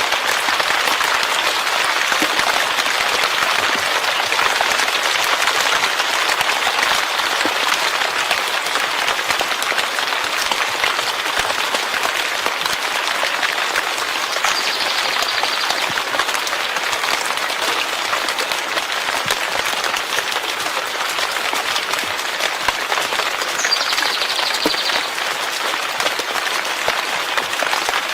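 Steady heavy rainfall: a dense, even hiss of countless drops that holds at the same level throughout.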